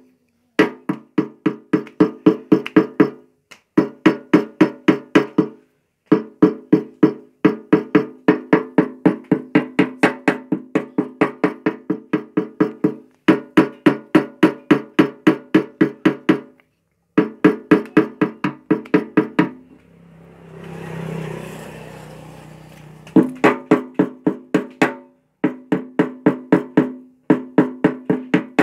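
Steel T-handle wrench tapping rapidly on a steel motorcycle fuel tank, about six ringing strikes a second in short runs, to even out the ridge over a glued patch on the rusted-through tank. About two-thirds of the way through, the tapping pauses for a few seconds while a rushing noise swells and fades.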